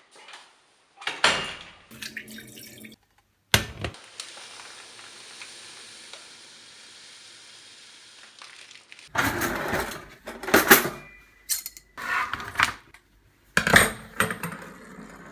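Kitchen clatter of pans and utensils in quick cuts, with a steady hiss for about five seconds in the middle from a pot of boiling water as dry grains are poured in, then a run of clanks and knocks.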